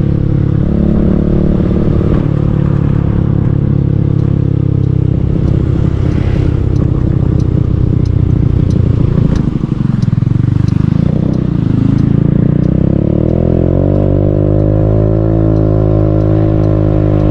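Motor scooter engine running on the road, the rider's microphone picking it up directly. Its pitch eases down as the scooter slows about ten seconds in, then rises steadily as it accelerates away.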